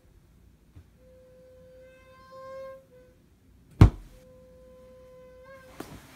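CPAP machine whistling in time with the sleeper's breathing: a steady high whistle that swells and stops, heard twice. A single sharp thump falls between the two whistles and is the loudest sound.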